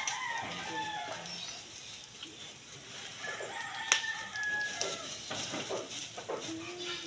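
Chickens calling, with a rooster crowing: several short pitched calls that rise and bend, one held a little longer about three and a half seconds in. A plastic bag rustles and there is a sharp click about four seconds in.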